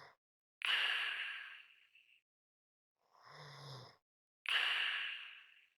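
A person breathing slowly and heavily, almost a snore. There are two full breaths: each a quieter breath with a low snoring buzz, then a louder, sudden breath that fades away over about a second and ends in a short light whistle.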